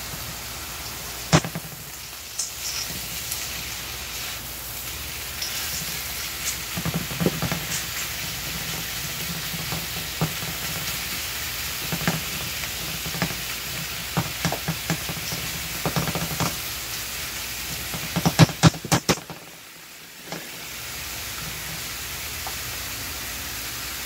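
Ground turkey sizzling steadily in a hot frying pan as it browns, with wooden spatulas knocking and scraping against the pan as the meat is stirred and broken apart. A quick run of sharp knocks comes near the end, just before the sizzle briefly dips.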